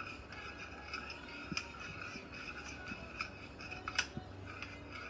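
Spoon stirring a thick honey, lemon and turmeric mixture in a small dish, scraping faintly with small clicks and two sharper taps about a second and a half in and near four seconds in.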